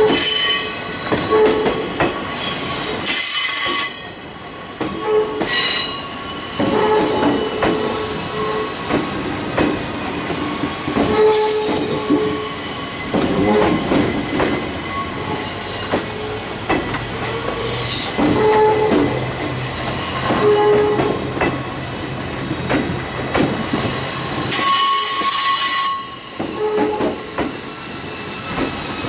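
Steel wheels of slowly passing, unpowered JR East 203 series commuter cars squealing on a curve, several high squeal tones starting and stopping as each bogie goes by. Clanks and knocks come from the wheels and running gear. A steady low hum joins for about ten seconds in the middle.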